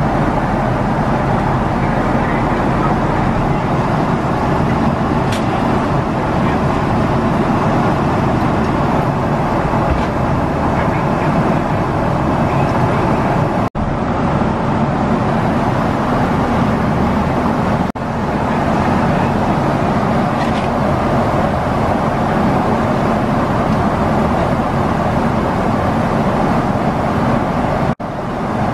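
Steady roar of a Boeing 777-300ER's passenger cabin in flight, engine and airflow noise at cruise. It breaks off in brief dropouts about a third of the way in, again a few seconds later, and near the end.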